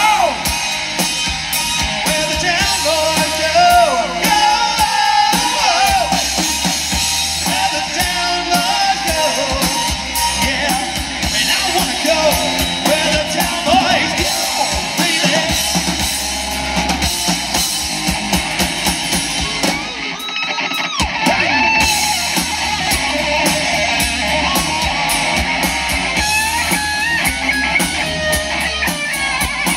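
Live 1980s-style rock band playing: electric guitars, bass and drum kit, with a male lead singer. The band drops out for a brief break about two-thirds of the way through, then the guitars come back in.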